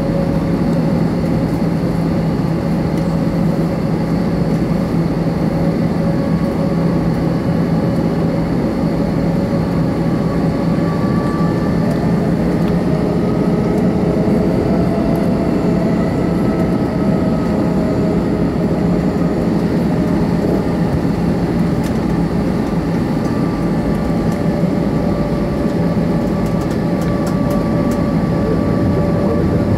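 Airbus A321 jet engines running at low ground power, heard inside the passenger cabin: a steady rumble with several engine whine tones that rise slightly and fall back in pitch. A low hum drops out about a third of the way through.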